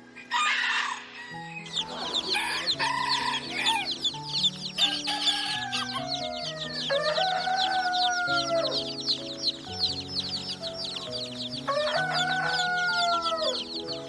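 A crowd of baby chicks peeping nonstop in a dense, rapid high chorus, with a rooster crowing twice, about seven and twelve seconds in, and a short harsh chicken call at the start.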